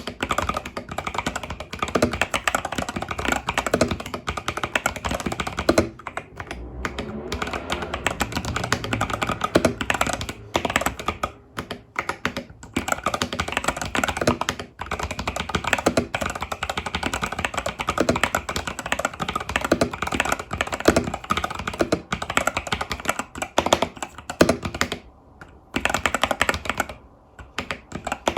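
Continuous typing on an Epomaker TH80 Pro mechanical keyboard with Epomaker Budgerigar tactile switches and stock keycaps: a dense stream of key clacks with a few brief pauses.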